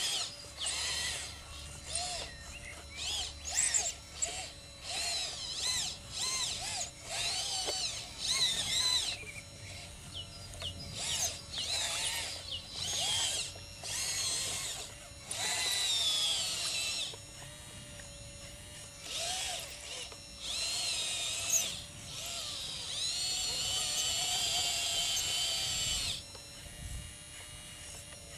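Electric drive motors and hydraulic pump of a radio-controlled scale model Liebherr LR 632 track loader whining in a long string of short bursts, the pitch sliding up and down as it drives and works the bucket. There are longer runs about halfway through and again after about two-thirds.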